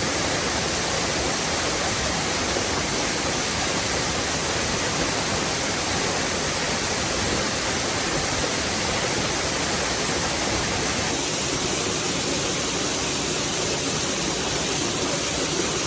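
Waterfall: a steady, even rush of falling water. It shifts slightly and softens a little about eleven seconds in.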